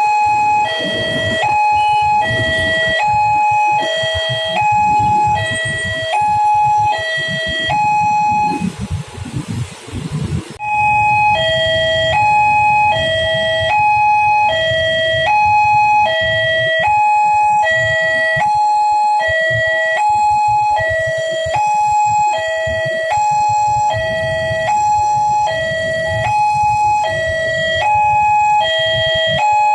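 Railroad level-crossing warning alarm sounding a loud two-tone hi-lo signal, about one high-low cycle a second. The alarm drops out for about two seconds roughly nine seconds in, leaving a hiss, then carries on. A low rumble runs underneath.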